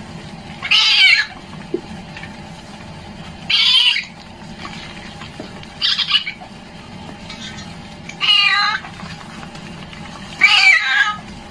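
A wet kitten meowing five times, a high-pitched call about every two to two and a half seconds, in distress at being bathed and lathered with flea shampoo.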